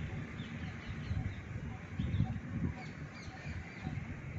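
Birds chirping and calling in the background as many short, scattered calls, over an irregular low rumble.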